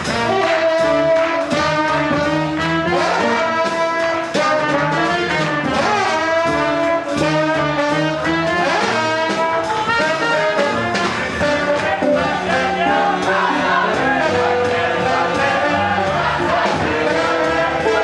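Swing jazz played by a band with trumpet and trombone over a steady beat.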